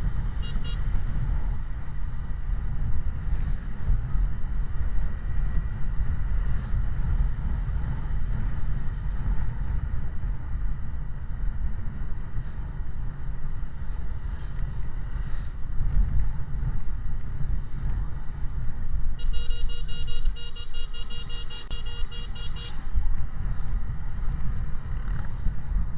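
Steady low rumble of a vehicle moving through traffic, with wind on the microphone. For about three and a half seconds near the end, and briefly right at the start, a high warning tone beeps in rapid pulses.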